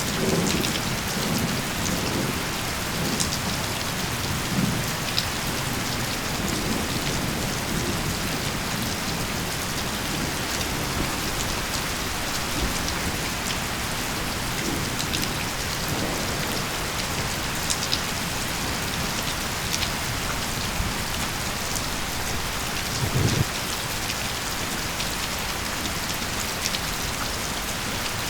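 Steady rain falling on the ground, with scattered close drop ticks. A low thunder rumble dies away in the first second, and a short low rumble comes about three-quarters of the way through.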